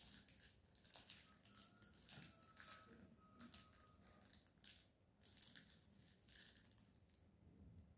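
Faint rustling of a paper receipt being handled, in soft irregular crinkles that thin out near the end.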